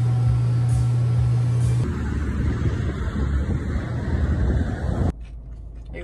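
Motor vehicle noise: a steady low engine hum, which gives way about two seconds in to a broader rumble that cuts off sharply near the end.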